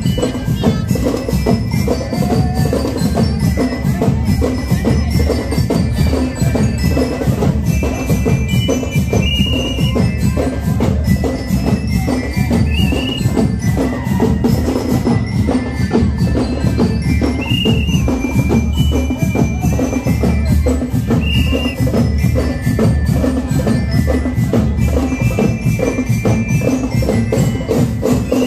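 Parade marching band playing a march: a steady, busy drum beat with a melody of short, bright bell notes from bell lyres or glockenspiels.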